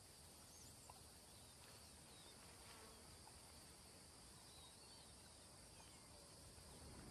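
Near silence: faint outdoor ambience with a steady high insect buzz and a few faint, brief bird chirps.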